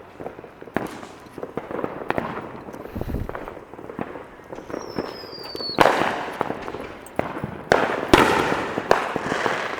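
Fireworks going off: scattered sharp pops and crackles. About five seconds in, a whistle falls slightly in pitch and ends in a loud bang. Two more loud bangs with crackling follow near the end.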